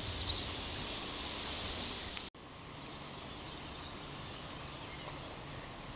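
Outdoor ambience: a steady hiss of background noise with a few short bird chirps near the start and fainter ones later. The sound drops out for an instant about two seconds in.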